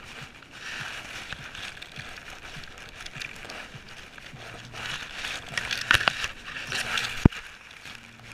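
Grass blades and fur brushing and rustling against a GoPro strapped to a dog moving through long grass, in uneven swells with small crackles. There is one sharp knock on the camera about seven seconds in.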